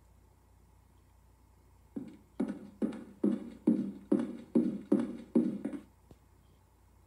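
Cartoon footstep sound effect: about nine evenly spaced steps, a little over two a second, heard through laptop speakers after a couple of seconds of near quiet.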